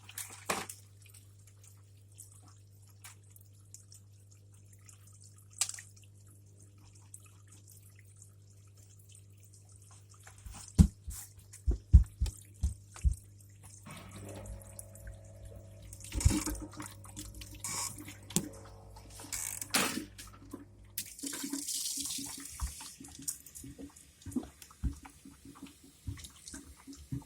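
Dishwasher running just after being started: a steady low hum that stops about two-thirds of the way through, a cluster of clicks and knocks, and water splashing and dripping.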